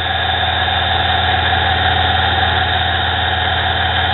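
Mini lathe running steadily, its small sewing-machine motor driving the spindle through a ribbed V-belt: a steady low hum with an even whir over it.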